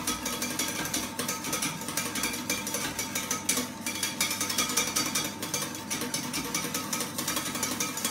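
Wire whisk beating egg yolks, champagne and sugar in a metal saucepan: a fast, continuous clatter of the wires against the pan as the sabayon is whisked to a foam over gentle heat.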